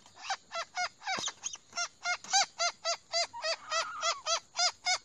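Crake (burung tikusan) calling: a rapid series of sharp, repeated pitched notes, about four a second.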